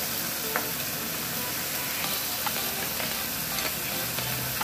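Beef slices, tomatoes and mushrooms sizzling in a hot non-stick pan: a steady frying hiss with a few sharp pops of spitting fat.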